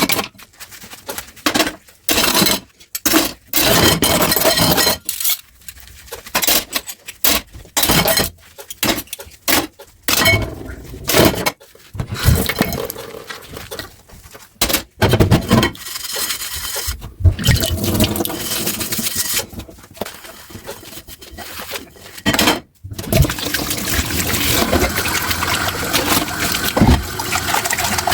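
Dishes being washed by hand at a sink: water splashing in short bursts, with dishes and glass clinking. For about the last five seconds the tap runs steadily.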